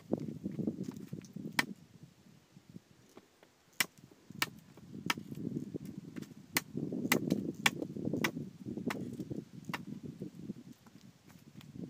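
About a dozen sharp, irregular knocks or chops, coming faster near the middle, over a low rustling and handling noise.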